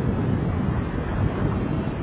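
Steady wind rush on the microphone of a camera moving along the road, with low rumble underneath.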